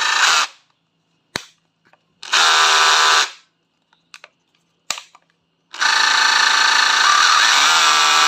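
Makita HR242D 18 V brushless cordless rotary hammer run with no load in trigger pulls, without hammering: a run that stops about half a second in, a click, about a second's run, two more clicks, then a steady run of about three seconds near the end. The motor and gears run smoothly.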